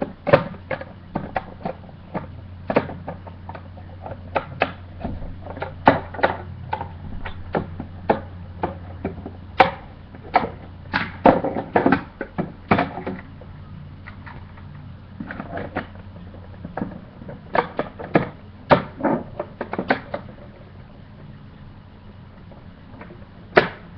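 Plastic parts of a toy security locker being handled and fitted back on: irregular sharp clicks and knocks, sometimes several in quick succession, with a few short pauses.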